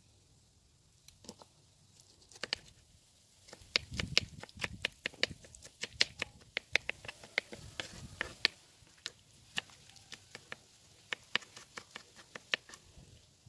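Knife dicing a peeled tomato on a wooden cutting board: a few scattered clicks at first, then from about three and a half seconds in a quick run of knife taps against the board with some soft thuds.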